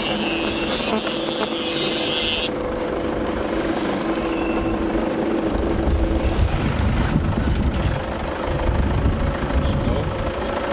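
Vehicle cabin noise from a moving Toyota on a dirt track: a steady engine hum over road and tyre noise. About halfway through, a heavier low rumble comes in.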